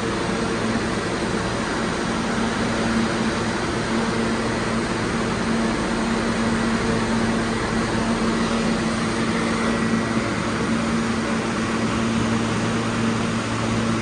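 New York City subway train standing at the platform with its doors open, its ventilation and electrical equipment giving off a steady, even hum.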